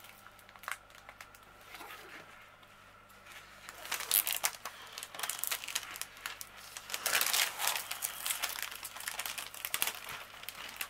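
Crinkling and rustling of a diamond painting canvas and its clear plastic cover film as hands flatten and lift it. It starts as a few faint handling clicks and grows into louder crinkling about four seconds in, loudest a few seconds later.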